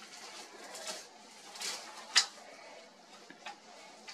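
Scattered short ticks and chirps from a flock of Eurasian siskins feeding at the edge of a drinking trough, with one sharp, much louder click about two seconds in.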